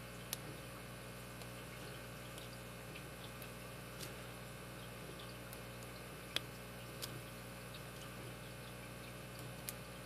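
Faint, scattered clicks and ticks of a steel pick working the pin stack inside a brass Master Lock V-line padlock, about five in all with the sharpest about six seconds in, over a steady low hum.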